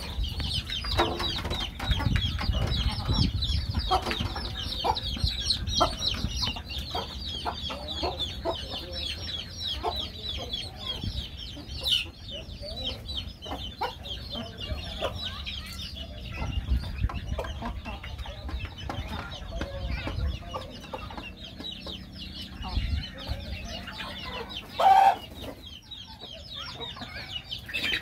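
A flock of chickens feeding: constant rapid high peeping from chicks, with adult birds clucking, and one brief loud call about 25 seconds in.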